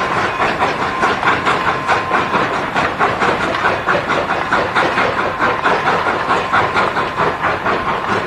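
Narrow-gauge steam train of the Durango & Silverton, hauled by Baldwin-built locomotive No. 482, rolling slowly past: the cars clatter over the rail joints in a steady rapid rhythm, with steam hissing and a faint steady squeal over the first few seconds.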